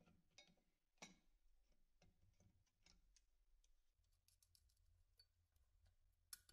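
Very faint clicks and ticks of gloved hands and a hand tool handling parts inside an open Grundfos CUE 100 converter housing, with a sharper click about a second in and another near the end.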